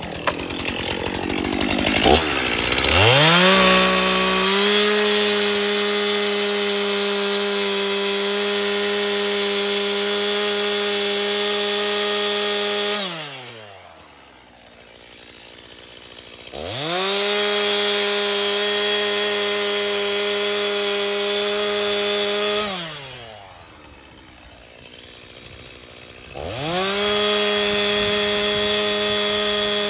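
Stihl two-stroke chainsaw ripping a thick plank lengthwise at full throttle, its note high and steady. It revs up in the first few seconds, and twice it drops back to a low idle for a few seconds before revving up again into the cut.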